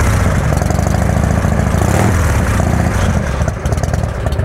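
S&S shovelhead V-twin on a Titan bobber running cold just after being fired up, with its S&S carb. It runs hard and full for about three seconds, then eases back to a slower, evenly pulsing idle.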